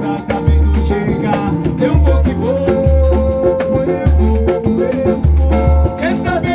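Samba music with a deep drum beat landing about once a second under sustained melodic notes.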